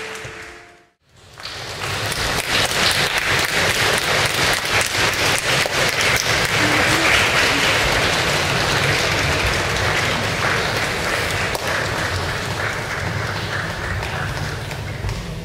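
Large audience applauding, a dense, steady clapping that cuts out for a moment about a second in, then resumes.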